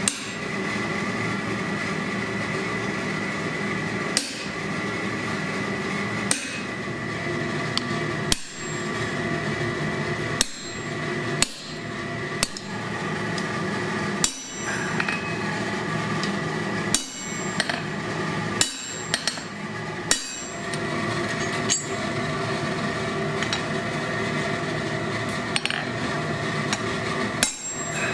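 Blacksmith's hand hammer striking hot steel on an anvil while forging tong jaws. Single blows come a second or two apart, some in quick pairs, over a steady hum.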